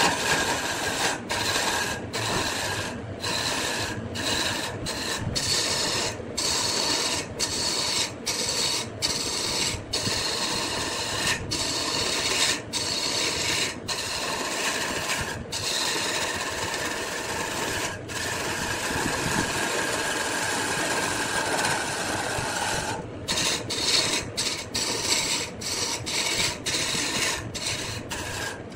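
Wood lathe spinning a workpiece while a tool scrapes and cuts the wood, a steady rasping broken by many brief drops about once a second.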